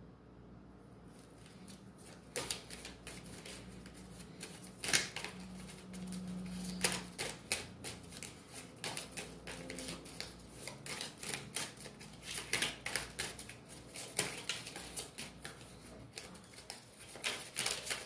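A run of irregular light clicks and taps in a small room, starting about two seconds in and going on unevenly.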